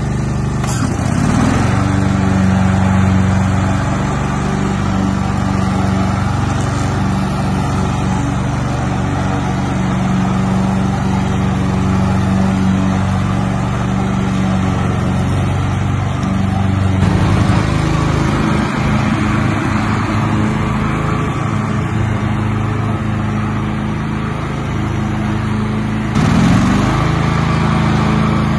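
Honda GCV530 V-twin engine of a Stiga Estate Special ride-on lawn tractor running steadily under load while mowing grass. The engine note dips briefly about a second in and again near the end, and the sound shifts abruptly about two-thirds of the way through.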